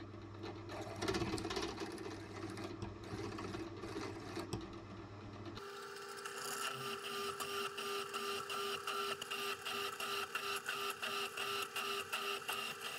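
Drill press cutting steel. First a 9 mm drill bit cleans up a marred hole. Then, after an abrupt change about halfway, an M8 counterboring bit cuts into the steel with a steady whine and a rapid, regular chatter.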